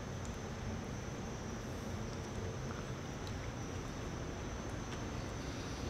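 Steady high-pitched insect chirring over a low background rumble, with a few faint ticks.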